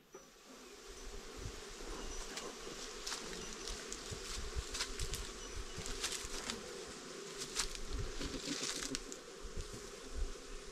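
A swarm of stinging insects buzzing in a steady hum, with scattered sharp clicks and rustles over it.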